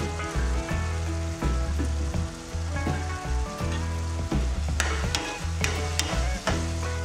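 Tomato-onion masala gravy sizzling in a nonstick wok, with a spatula scraping and stirring the ground spices in from about five seconds in. Soft background music with a low bass line plays underneath.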